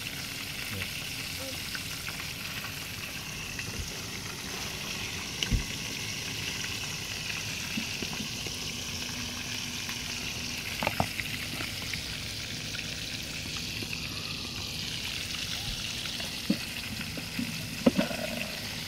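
Fish frying in a skillet of hot oil on a portable gas stove: a steady sizzle, broken by a few short sharp clicks.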